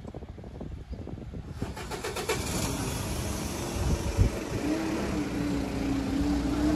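A motor vehicle running, its noise swelling about a second and a half in and joined by a steady hum about halfway through.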